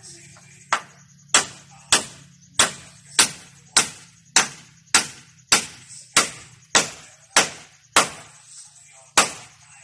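A hammer striking timber roof framing: about fourteen sharp blows in a steady rhythm of a little under two a second, with a short pause before the last.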